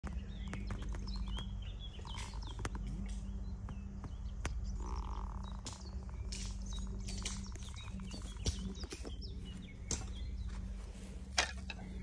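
Small birds chirping and calling in an evening chorus, over a steady low hum, with a few sharp clicks scattered through, the loudest near the end.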